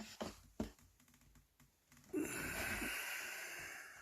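A few light clicks and taps from packaging being handled in the first second, then a steady hiss lasting about two seconds from about halfway in.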